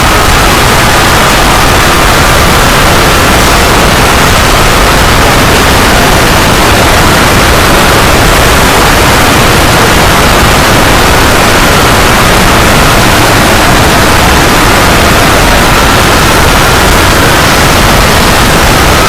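Loud, steady static-like noise with a faint wavering whistle-like tone running through it.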